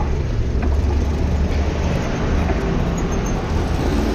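Steady low rumble of street traffic and wind noise while riding a bicycle along a city street.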